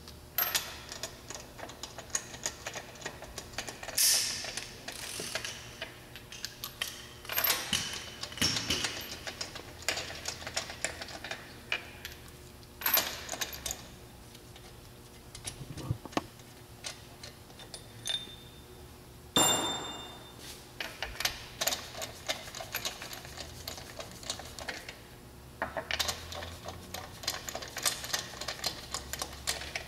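Lug bolts being run into a Mercedes-Benz alloy wheel with a socket and ratchet: runs of quick metallic clicking, with three louder metallic knocks.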